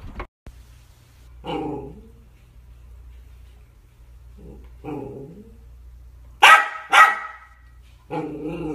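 Small dog making short whining grumbles three times and two sharp barks in quick succession about two-thirds of the way through, aimed at another dog over a treat on the floor.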